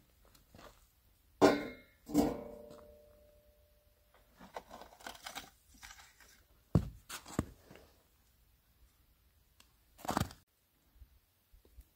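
The sheet-metal door of a clay dome oven is lifted off and set down, clanking twice about a second and a half in, the second clank ringing on. Scraping and knocks follow as a metal baking tray is drawn out over the oven's brick mouth.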